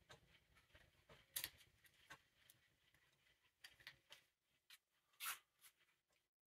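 Faint small clicks and scrapes of a magnetic screwdriver working tiny screws into the throttle butterfly valve of a Ford 8N carburetor, with irregular light ticks and the two sharpest clicks about one and a half seconds and five seconds in.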